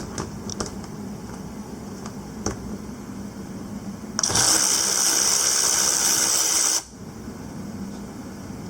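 Cordless electric ratchet wrench with a 3/8" drive, its motor run on the trigger for about two and a half seconds and stopping abruptly. A few light clicks come before it.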